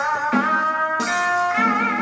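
Traditional hát bội ensemble music: a wavering, held melodic line moving from note to note, punctuated by drum strokes.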